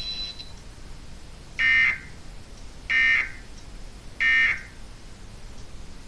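Emergency Alert System End of Message data tones: three short bursts of warbling digital code, evenly spaced about 1.3 seconds apart, marking the close of the EAS test.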